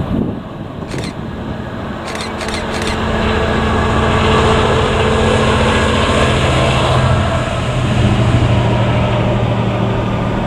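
A convoy of three Class 66 diesel locomotives running light past, their EMD two-stroke V12 engines droning steadily under wheel and rail noise that builds to its loudest in the middle and eases near the end. A few sharp clicks in the first three seconds.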